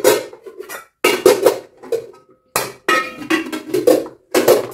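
Clean pots, pans and dishes clattering as they are stacked and put away: about a dozen sharp clanks, one leaving a short ring about two seconds in.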